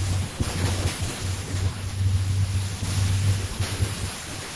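Small boat under way through choppy water: rushing water with a heavy, uneven wind rumble on the microphone.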